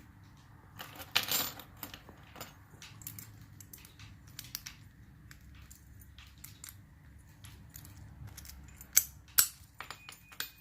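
Scattered small metallic clicks and clinks from a padlock and lock-picking tools being handled and put down, with a few louder knocks about a second in and again near the end.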